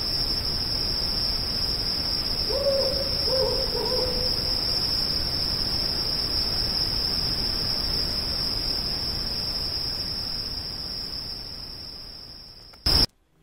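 An owl hooting three short times in quick succession about two and a half seconds in, over a steady high insect trill. The night sounds fade out near the end, cut by a brief loud click.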